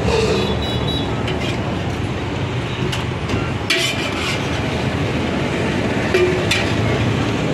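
Steady street traffic noise, with a few short clinks and scrapes of a ladle against a large aluminium biryani pot and a foil takeaway container.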